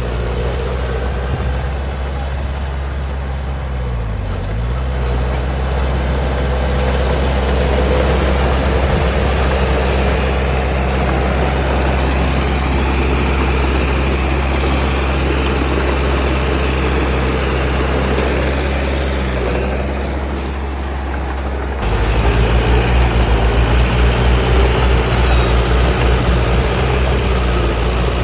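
Heavy diesel engine of earthmoving machinery running steadily. Its pitch dips and recovers briefly about four seconds in, as if under load. About 22 seconds in the sound jumps louder with a fast throbbing.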